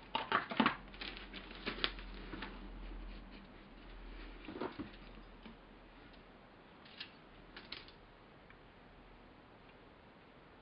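Plastic model-kit sprues being handled and laid on a paper-covered table: light clicks and rattles, bunched in the first two seconds, with a few more around the middle.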